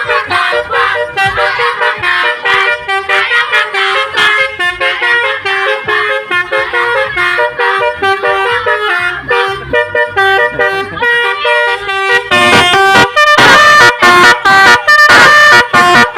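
Multi-tone 'telolet' bus horn playing a fast tune of stepped notes again and again; it grows louder about twelve seconds in.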